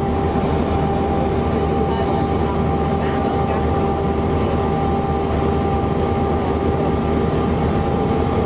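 Steady road and engine noise of a vehicle travelling at highway speed, with a constant hum.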